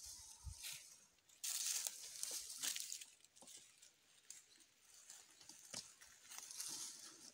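Komodo dragon tearing at and feeding on a small animal's carcass on dry leaf litter: irregular bouts of tearing and rustling, loudest from about a second and a half to three seconds in and again near the end.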